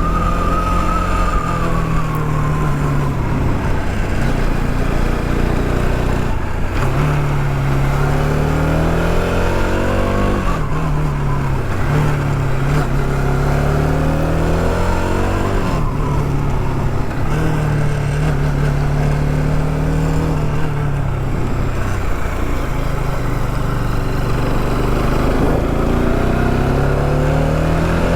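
Motorcycle engine running under load on a climb, its pitch rising and falling again and again with throttle and gear changes, over steady wind rush.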